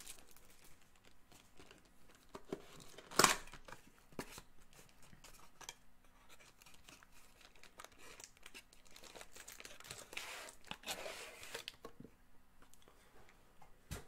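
Plastic wrapper of a Topps Gold Label baseball-card pack torn open with one sharp rip about three seconds in, with crinkling around it. Later comes a longer stretch of rustling and cardboard scraping as the cards are slid out of the pack's white inner box.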